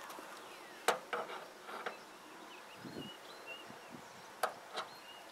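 A few sharp metallic clicks and taps as a wrench is fitted onto the brass service valves of a mini-split outdoor unit, with a soft thud about three seconds in and faint high chirps in the background.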